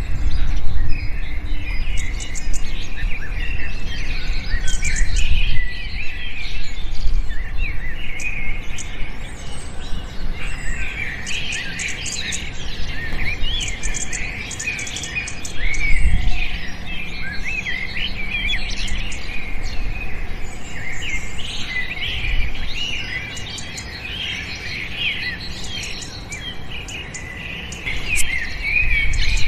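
Many small birds chirping at once, a dense chorus of short high chirps and trills overlapping one another. A low rumbling noise runs underneath and swells briefly a few times.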